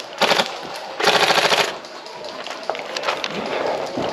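Airsoft rifle firing on full auto, a rapid rattle of shots. A short burst comes about a quarter second in and a longer burst of about two-thirds of a second about a second in, followed by fainter scattered single shots.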